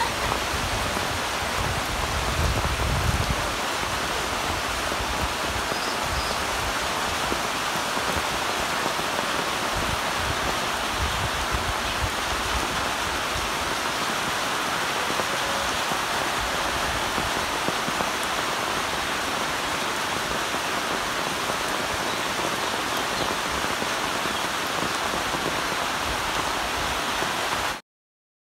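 Steady rush of water, rain and runoff in a muddy rivulet, with a low rumble about two to three seconds in; it cuts off suddenly near the end.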